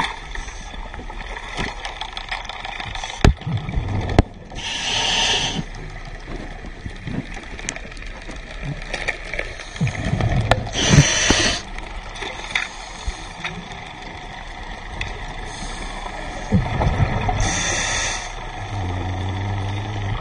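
Scuba diver breathing through a regulator, heard through an underwater camera housing: a hissing inhale about every six seconds, three in all, with low rumbling exhaust bubbles between them. A low steady hum comes in near the end.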